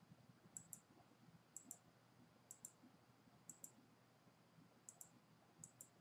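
Faint computer mouse clicks: about six quick press-and-release pairs, roughly a second apart, as lines are picked one after another with the offset tool in a CAD program.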